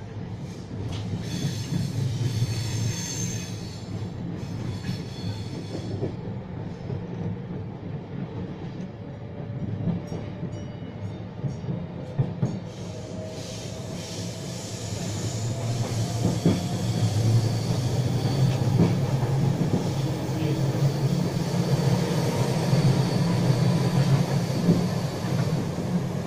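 Passenger train running, heard from inside the carriage: a steady low rumble of wheels on track, with high-pitched wheel squeal a couple of seconds in. In the second half the running noise grows louder and a faint tone slowly rises in pitch.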